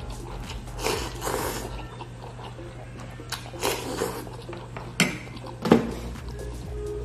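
Instant noodles slurped into the mouth in several short hissing sucks, with chewing between. Two sharp knocks come about five seconds in, the second the loudest sound.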